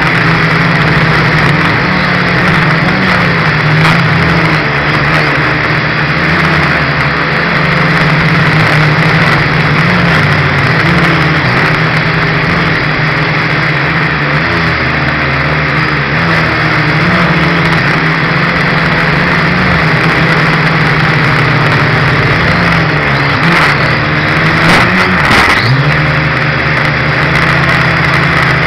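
Dromida Ominus FPV quadcopter's four small electric motors and propellers buzzing steadily, close to the onboard camera's microphone, the pitch wavering as the throttle changes. Near the end the pitch dips briefly, with a few faint clicks.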